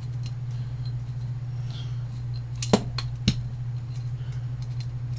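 Small metal mounting bracket parts being handled, giving a few sharp clinks about halfway through, over a steady low hum.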